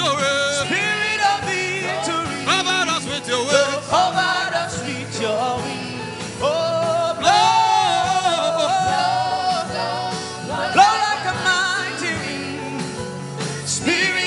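Gospel worship song: a voice sings wordless, gliding held notes over a steady instrumental backing, with one long held note about halfway through.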